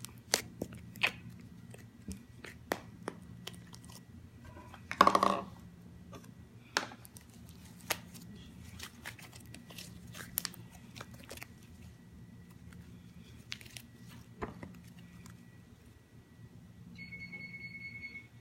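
Slime being squeezed and poked, giving irregular sharp clicks and pops, with a louder crackle about five seconds in. A steady electronic beep lasts about a second near the end.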